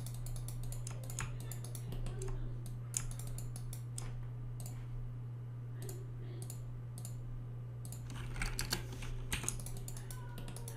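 Scattered clicks and taps from a computer keyboard and mouse, busiest about eight to nine seconds in, over a steady low hum.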